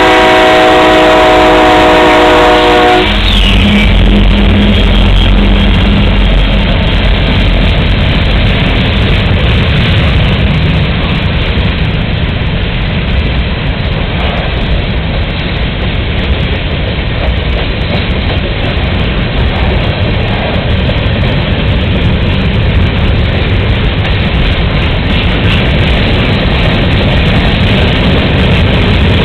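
Union Pacific freight train led by two EMD SD70M diesel locomotives. A multi-note locomotive air horn sounds for about three seconds and cuts off. Then come the deep rumble of the diesel engines going by and the steady rolling noise of covered hopper cars passing over the crossing.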